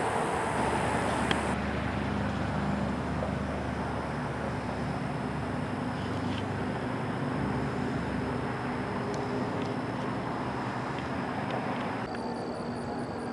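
Road traffic going by: a steady drone of passing vehicles.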